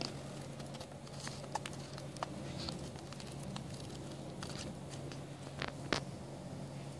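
Pages of a paperback book being flicked through by hand, a scatter of soft paper ticks with one louder snap about six seconds in, over a steady low hum.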